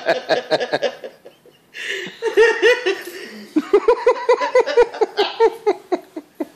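Baby laughing: runs of high-pitched giggles at about five pulses a second, broken by short pauses between the runs.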